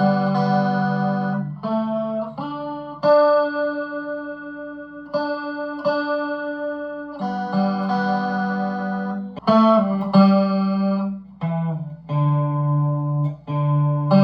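Harley Benton S-Style electric guitar played through an effects unit, chords struck and let ring, changing every second or two.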